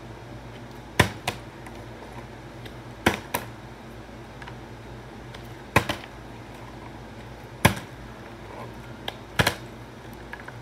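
A partly filled plastic water bottle flipped and landing on a tile floor again and again: about five sharp clacks roughly two seconds apart, most followed quickly by a second, smaller knock.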